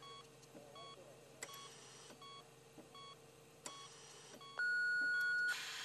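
Bedside hospital equipment beeping: soft, short beeps repeat over a faint steady hum. About four and a half seconds in comes a single long, louder beep lasting about a second, followed by a steady hiss.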